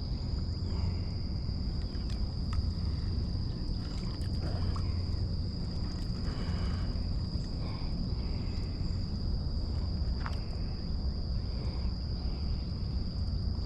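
Continuous high-pitched drone of insects over a low outdoor rumble, with a few faint clicks.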